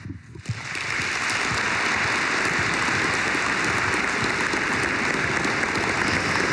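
Seated audience applauding; the clapping starts about half a second in, builds within a second and then holds steady.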